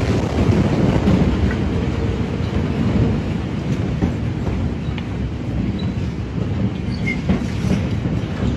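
Steady low rumbling roar in the aftermath of the 2020 Beirut port explosion's blast, fading slightly, with a few faint ticks.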